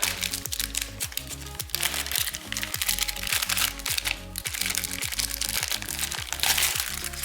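Background music with a steady beat, over the crinkling and crackling of packaging as items are handled and taken out of a box.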